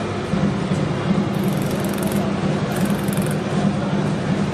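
Steady machine hum and running noise with a low drone, and two brief faint high rattles about one and a half and three seconds in.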